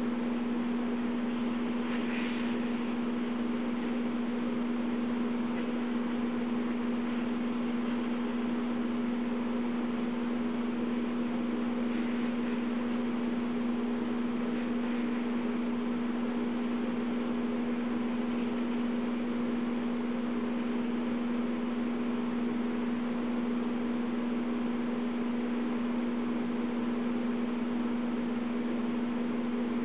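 A steady, unchanging electrical hum with a constant hiss beneath it.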